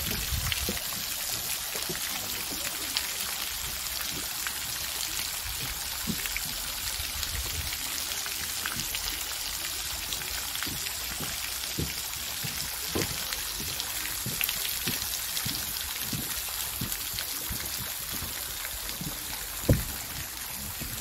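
Pond spray fountain's jet falling back onto the water surface: a steady hiss of splashing water, with a brief bump near the end.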